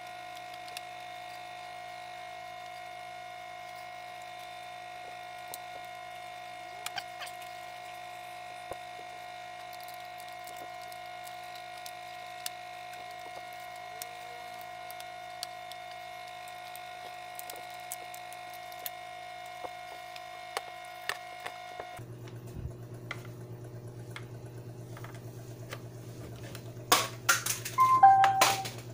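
Steady electronic whine from the speakers of a boombox fitted with a Bluetooth MP3 decoder and amplifier board: a pitched tone with several overtones that drops abruptly to a lower hum about 22 seconds in. A burst of clicks and knocks near the end is the loudest sound.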